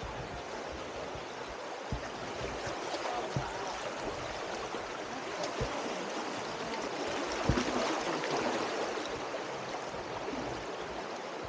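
Flowing river water: a steady rushing hiss that swells a little midway, with a few short low thumps.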